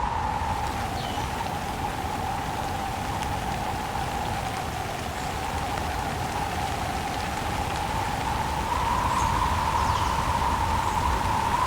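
Steady rain with gusting wind, an even rushing noise that dips and then swells louder near the end, with a few faint high chirps.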